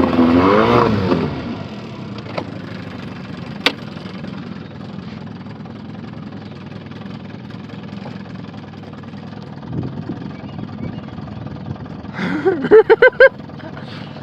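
Boat motor running steadily under way. A voice-like pitched sound trails off in the first second, a sharp click comes about three and a half seconds in, and a loud burst of about five quick pitched pulses breaks in near the end.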